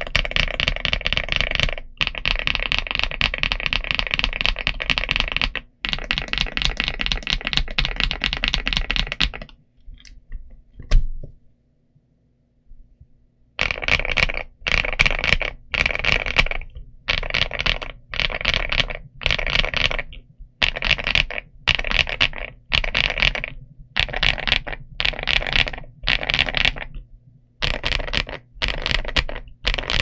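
Mechanical keyboard with Aster linear switches and double-shot PBT Cherry-profile keycaps being typed on, an iLovBee B87 TKL, fast and continuous at first. About ten seconds in the typing breaks off to a few single key presses with one sharp, loud clack, then stops briefly. It resumes as short bursts of rapid keystrokes about a second long with short pauses between.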